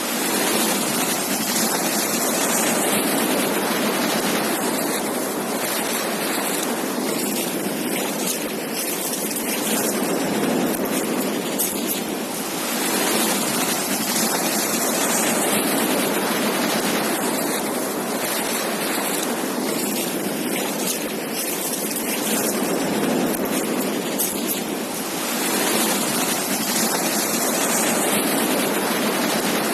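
Sea surf washing onto a beach: a continuous hiss of breaking water that swells and eases in slow waves about every twelve seconds.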